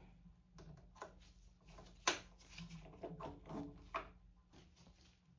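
Faint, irregular clicks and light taps of a 5 mm hex key working the screws of a steering-stabilizer mount, with a sharper click about two seconds in and another near four seconds.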